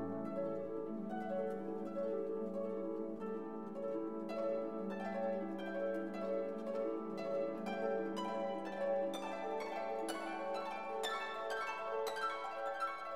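Background instrumental music: plucked notes over held tones, the plucking growing busier about four seconds in.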